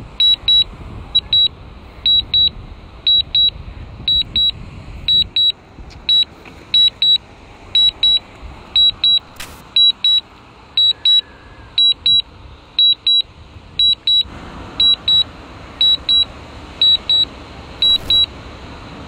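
DJI Mavic Air drone remote controller sounding its warning alarm: a high double beep repeating about once a second.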